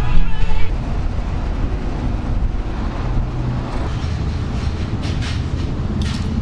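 Music cuts off within the first second, leaving a steady low rumble, with a few short hissing bursts near the end.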